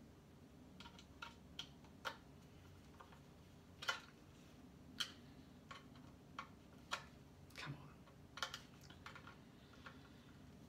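About a dozen faint, irregular clicks and ticks of a screwdriver working the screws of a blunderbuss kit's lock fittings, its tip tapping and turning on metal screw heads. The loudest click comes about four seconds in.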